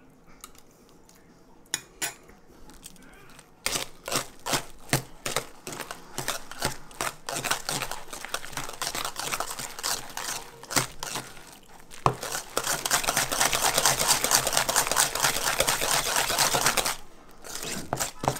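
Wire whisk beating mashed potatoes in a stainless steel bowl, the wires clicking and scraping against the metal. It starts a few seconds in as quick separate strokes, turns into fast, steady whisking about twelve seconds in, and pauses briefly near the end before starting again.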